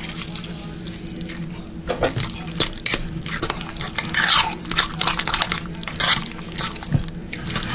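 A metal fork stirring chunky guacamole in a bowl. The tines click and scrape against the bowl over and over, with a few longer wet swishes.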